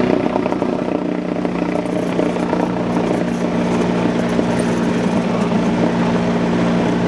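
Cessna 172's piston engine and propeller running steadily, heard from inside the cabin, growing a little louder from about two seconds in.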